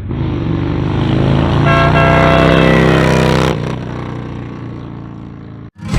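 Wolo Bad Boy motorcycle air horn blowing a long, loud blast. A higher, brighter tone joins in about two seconds in, and the sound drops back about three and a half seconds in and fades away.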